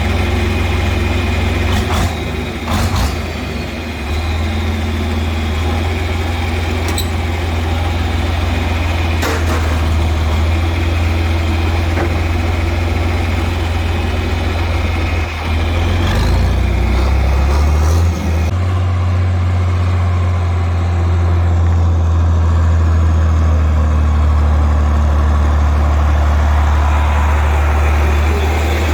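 Tractor engine running steadily with a strong low drone, a few knocks and rattles over it; a little past halfway the engine note dips briefly and then picks up again.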